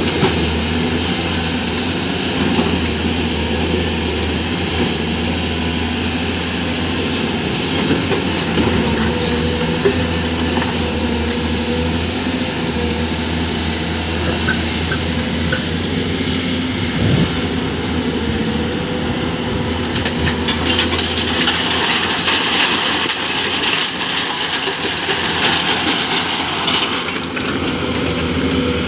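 A heavy hydraulic excavator's diesel engine runs steadily at a constant speed. For several seconds about two-thirds of the way through, a dense, rattling hiss rises over it.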